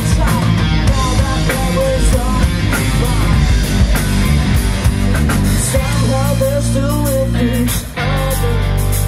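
Live rock band playing: electric guitars, bass guitar and drums, with a wavering melody line over them. The band drops out for a moment about eight seconds in, then comes back with held notes.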